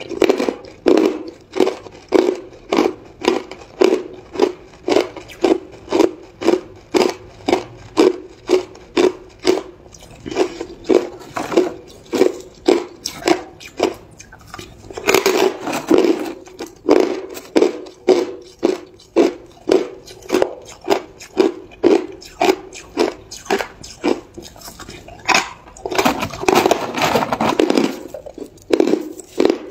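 Chunks of hard ice being chewed with the mouth close to the microphone: a steady run of crisp crunches, about three every two seconds. The crunching turns louder and denser about fifteen seconds in, just after a fresh piece goes into the mouth, and again a few seconds before the end.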